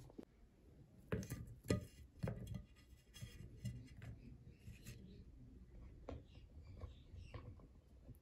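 Light taps, clicks and rubbing of vegetables being set by hand onto a metal serving tray, with a few sharper knocks between one and two and a half seconds in, then softer scattered ticks.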